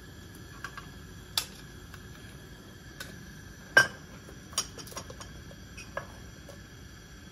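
Scattered sharp clicks and clinks of glass and plastic labware being handled on a lab bench, about eight small knocks with the loudest clink about four seconds in, over a faint steady high tone from lab equipment.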